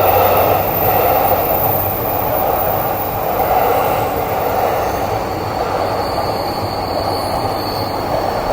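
Electric commuter train moving along the platform, a steady loud rumble of wheels and running gear, with a thin high squeal joining about five seconds in.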